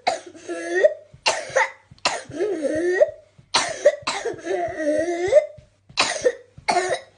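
A person coughing in repeated fits, about six loud bursts, with high wavering pitched sounds drawn out between the coughs, presented as whooping cough.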